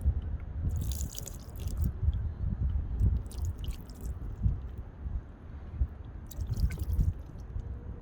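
Water poured over the glass panels of a roof lantern, splashing and running off in three short bursts (about a second in, around three seconds and near seven seconds), over a steady low rumble.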